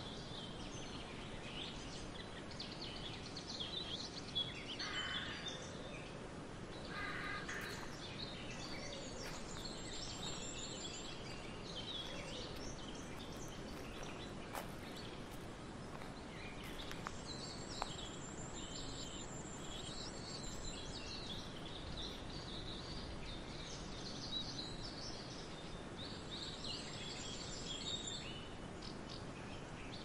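Small songbirds chirping and calling over faint steady background noise, with a high, thin trill that comes back three times.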